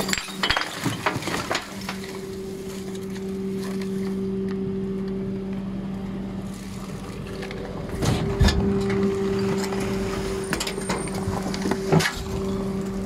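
Rear-loading garbage truck's hydraulic packer blade cycling through the hopper, over the steady hum of the truck's hydraulic drive, with clanks and crunches as the waste is swept in and pressed. The knocks are loudest in the first second or so, about eight seconds in, and near the end.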